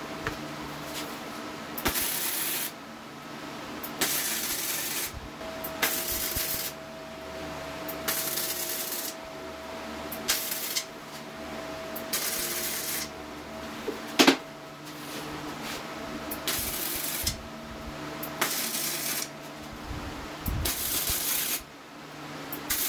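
Wire-feed welder laying short tack welds on steel bar: a series of crackling bursts, each under a second, with pauses between. About 14 s in there is one sharp, loud metallic clank.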